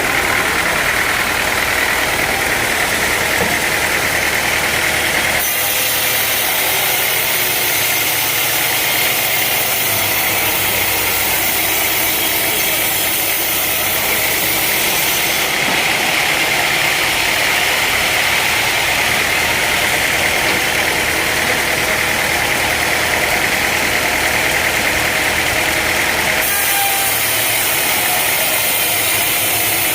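Sawmill machinery running steadily, an engine-driven saw working on logs, with a high whine over a constant mechanical noise. The sound changes abruptly three times, about 5, 15 and 26 seconds in.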